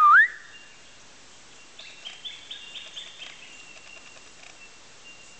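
Birds calling: a loud wavering whistled note at the start, then a quick run of short high chirps, over a thin, steady high-pitched note.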